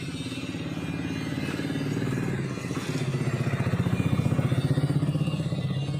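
A small engine running with a fast, even throb, growing louder to its peak about four to five seconds in, then easing off.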